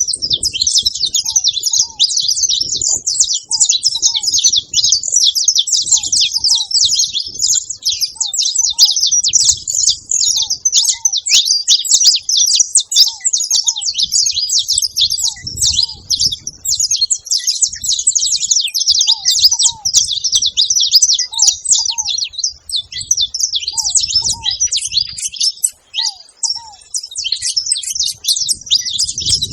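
A group of saffron finches chattering and singing without pause in a dense stream of quick, high notes. A short, soft, lower note from ground doves repeats about once a second underneath.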